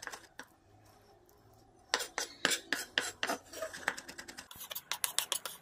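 Chef's knife mincing garlic on a wooden chopping board: a few light taps, then from about two seconds in a rapid run of knife strikes on the board, several a second.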